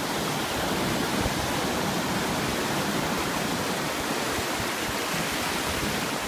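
Ocean surf breaking and washing through the shallows: a steady, unbroken rushing noise.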